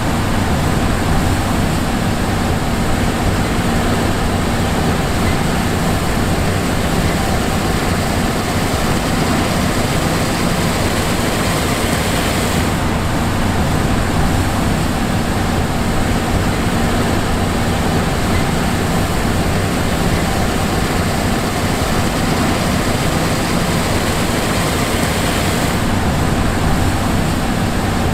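John Deere S780 combine harvester running steadily: its diesel engine and machinery make a constant loud hum with a steady low tone under a hiss that brightens briefly about halfway through and again near the end.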